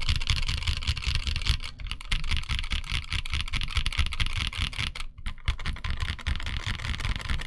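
Fast continuous typing on a Parallel Sequence 65 mechanical keyboard with Mekanisk Ultramarine switches: a rapid stream of keystrokes with a brief pause about five seconds in.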